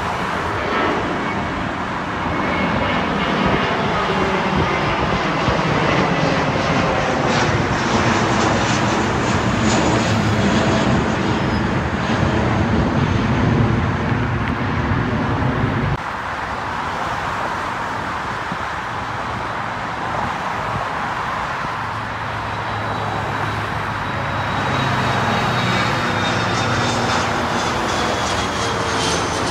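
Jet airliner engines roaring as the planes climb out overhead after takeoff. The roar drops abruptly about halfway through, then a second jet builds up with a high engine whine that slowly falls in pitch as it passes.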